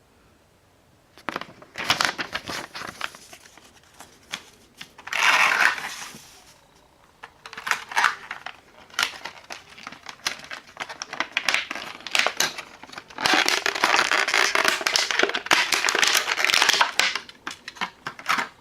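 Crinkling and rustling, as of plastic packaging being handled, in irregular bouts with scattered clicks. The densest, most continuous stretch comes about two-thirds of the way in.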